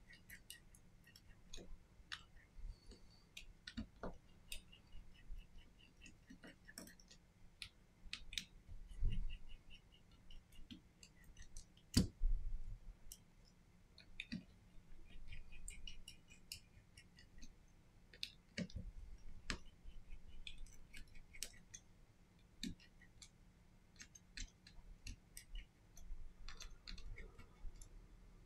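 Small repair tools clicking and tapping irregularly against a smartphone's frame and internal parts as it is taken apart, with a couple of louder knocks midway.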